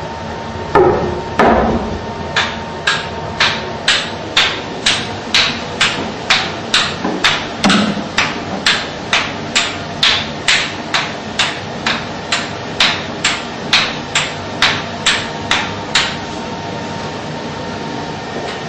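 Two heavier thumps, then a long run of sharp, evenly spaced knocks, about two a second, that stops a few seconds before the end.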